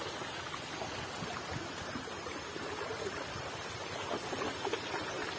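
Shallow muddy stream running steadily, a soft even rush of water.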